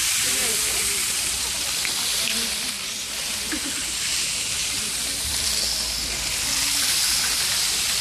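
About forty homemade cardboard-tube rain sticks tilted together, their fill pouring through in a dense, steady rushing hiss.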